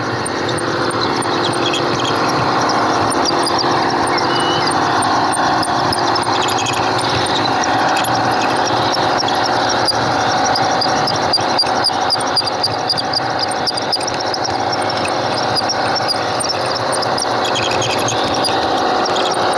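Garden-scale model train running along the track, heard up close from on board: the steady whirr of its motor and gears, with wheels clicking over the rails.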